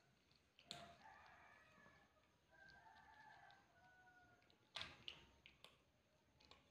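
Quiet sounds of a cat eating from a bowl: a few sharp clicks of chewing and of food against the bowl. Behind them, between about one and four and a half seconds in, a faint drawn-out pitched call.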